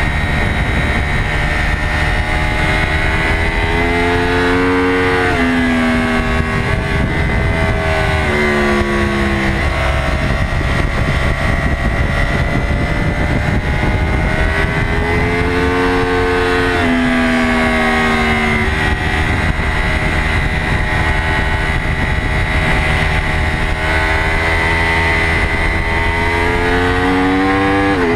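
Yamaha YZF-R1 crossplane inline-four racing engine at high revs under a rushing wind noise, its pitch climbing under acceleration and dropping suddenly at upshifts, about three times.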